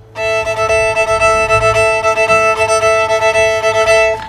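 Bluegrass-style string band music starting suddenly after silence: a fiddle holds one long note over a steady, pulsing rhythm backing, then breaks off near the end as the tune moves on.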